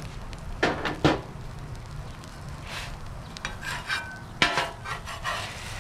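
Metal cooking utensils knocking and scraping on a flat-top griddle, with a few sharp clanks about a second in and again near the end, over food sizzling on the hot griddle.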